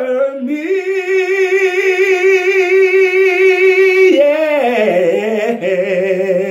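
A man singing a gospel song unaccompanied. He holds one long high note for about three seconds, with vibrato, then slides down through a run of lower notes to close the song.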